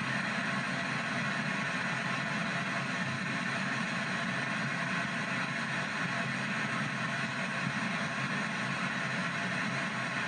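P-SB7 ghost box sweeping the FM radio band in reverse, its speaker giving a steady hiss of radio static as it jumps from frequency to frequency.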